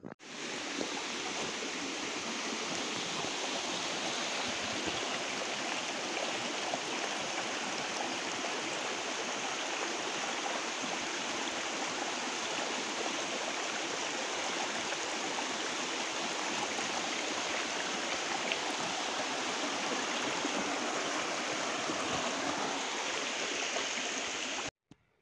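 Steady rushing of a stream flowing over rocks; it fades in at the start and cuts off suddenly near the end.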